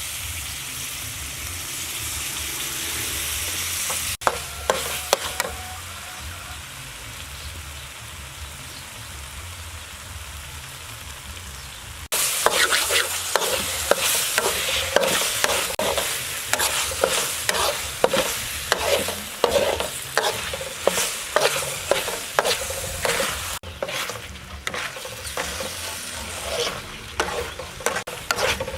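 Food sizzling in a hot pan while a spatula stirs and scrapes through it. The sound changes abruptly a few times. From about twelve seconds in, quick, loud scraping strokes come several times a second over the sizzle.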